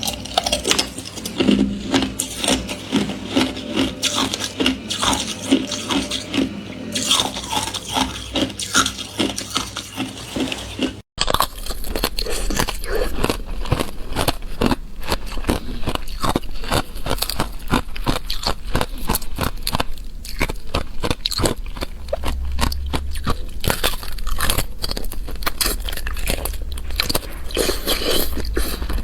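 Thin ice crunched and chewed between the teeth, with a rapid run of irregular crisp cracks. After a brief break about eleven seconds in, the crunching turns finer and quicker.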